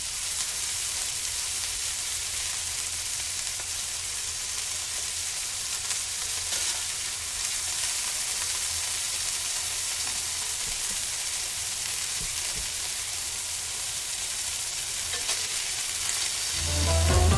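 Food frying in hot fat: a steady sizzle with a few faint crackles.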